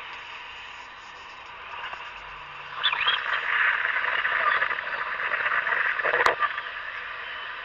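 A dense chorus of calling frogs and insects that swells about three seconds in, with a few short chirps on top and a single sharp click about six seconds in.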